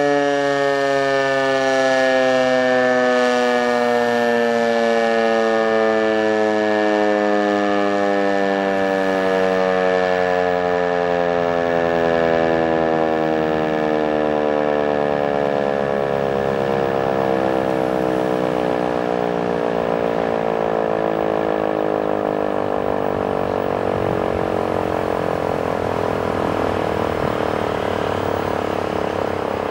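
ASC T-128 electronic warning siren sounding one long tone whose pitch glides slowly and steadily down, fading slightly near the end, during a scheduled test of the warning system.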